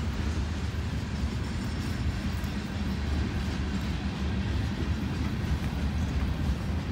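Freight train's tank and hopper cars rolling past, a steady low rumble of steel wheels on the rails.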